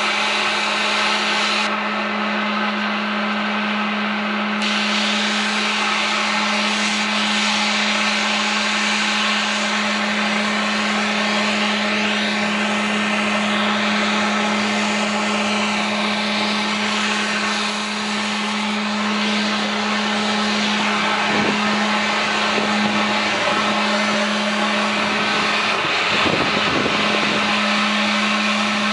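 80 HP Cleaver Brooks natural-gas-fired firetube steam boiler running on test: a steady burner and blower din with a constant strong hum under it.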